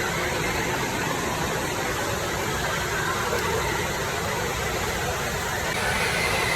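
Steady, loud rushing noise of pouring and splashing water at an indoor water park.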